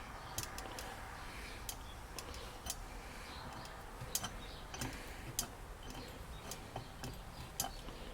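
Irregular light metallic clicks of small tools and brass screws being handled, as the screws of a 1928 Rolls-Royce Autovac are worked into its plate.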